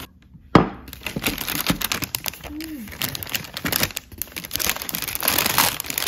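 White paper wrapping crinkling and rustling as hands unwrap a pretzel, with a sharp knock about half a second in.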